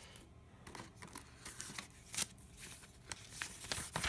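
Paper rustling and crinkling as a folded paper insert is handled and unfolded, with short crackles throughout and a sharper one about two seconds in.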